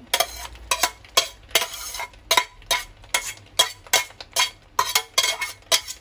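A metal spoon stirring cooked bow-tie pasta with turkey and mushrooms in a stainless steel pot, knocking and scraping against the pot about twice a second, with the soft wet squish of the food between the strokes.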